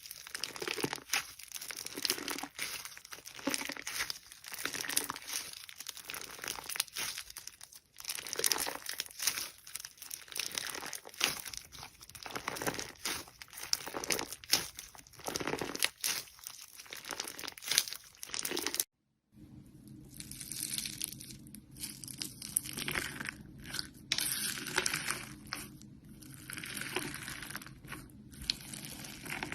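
Hands squishing, stretching and pressing slime, making dense sticky crackling and tearing noises. About two-thirds of the way through there is a brief dropout, and the crackling goes on over a faint steady low hum.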